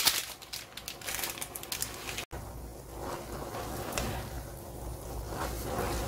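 Wooden chopsticks stirring instant noodles and sauce powder in a pan: soft scraping and rustling with a few light taps.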